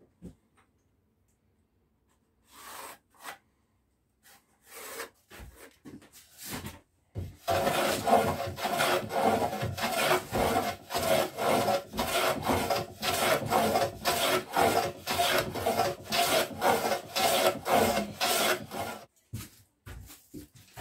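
Hand plane pushed in repeated strokes along the edge of a wooden frame, shaving the wood. A few separate strokes come first; from about a third of the way in they run on steadily at about two to three a second, then stop near the end.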